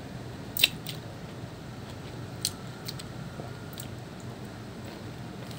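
Eating pomelo: about five short, sharp, wet clicks of chewing and pulling at the fruit's pulp, the loudest just over half a second in, over a faint steady background hum.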